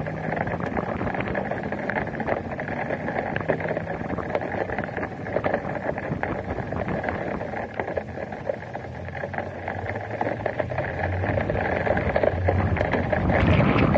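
Wind and rain on a vehicle-mounted camera's microphone, with scattered raindrop ticks and a low vehicle engine hum. The engine note rises and the wind noise grows louder as the vehicle pulls away near the end.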